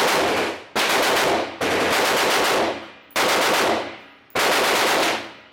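Gunshots on an indoor firing range: four shots at uneven spacing, roughly one to one and a half seconds apart, each with a long echoing ring-out.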